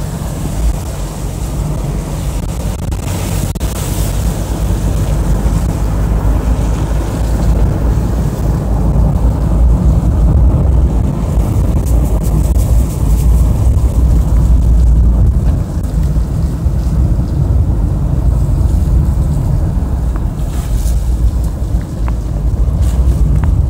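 Car interior road noise: a steady low rumble of engine and tyres on a wet road, with wind noise on the microphone rising in brief gusts a few seconds in and again near the end.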